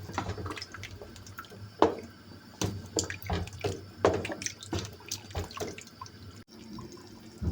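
Water splashing and dripping at a kitchen sink, with irregular knocks and clatter.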